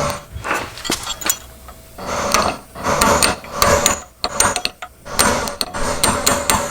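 Hammer striking a punch against a steel axle nut, a series of irregular sharp metallic taps, as the nut's collar is re-staked into the axle shaft to lock it.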